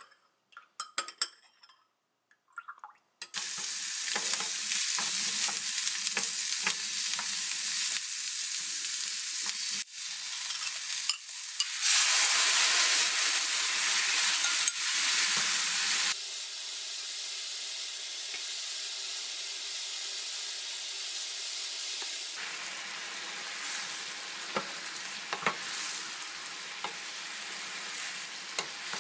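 A few light clinks of a spoon in a glass measuring beaker, then vegetables and tomato sauce sizzling in a frying pan as they are reduced, stirred with a spatula that scrapes and taps the pan. The sizzle changes level abruptly a few times.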